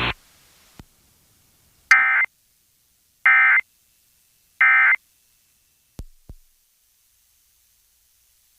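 Emergency Alert System end-of-message signal: three short, identical bursts of digital data tone about a second apart, marking the end of the alert. Two short clicks follow about six seconds in.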